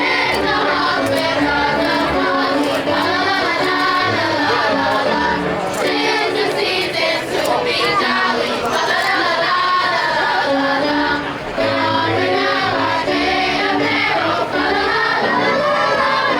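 A choir singing with musical accompaniment and a steady bass line, amplified for a crowd at a live outdoor performance.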